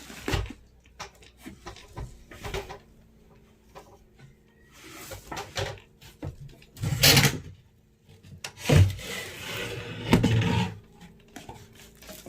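Irregular wooden knocks, scraping and rustling as parts of a bed frame are handled, with a few louder clunks partway through.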